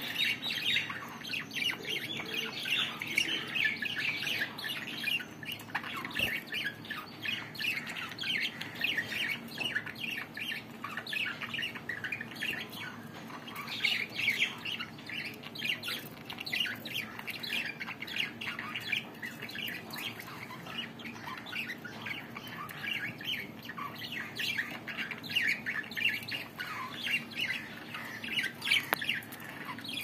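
Budgerigars chattering: a constant stream of rapid, short, high chirps and squawks.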